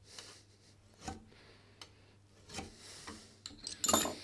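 Carbide burnisher drawn along the edge of a steel cabinet scraper clamped in a vise: a few short, separate strokes of hard metal rubbing on metal, the loudest near the end. Each stroke rolls the scraper's edge over into a cutting hook.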